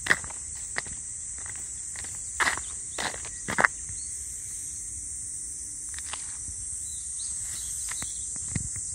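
Steady high-pitched insect chorus, with footsteps on soil as the person filming walks; the steps are loudest two to four seconds in.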